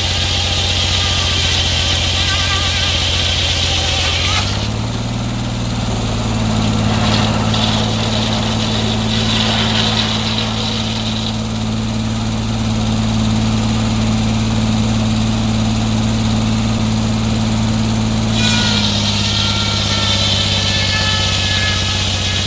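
Sawmill engine running steadily. About four seconds in its pitch steps up and holds for roughly fourteen seconds, then drops back near the end. A high whine sounds over it at the start and the end.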